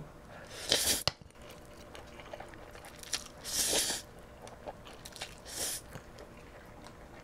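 Close-miked eating: a person slurps instant jjajang noodles and chews, with three short hissing slurps (about a second in, near the middle, and a little later) and soft wet chewing clicks between.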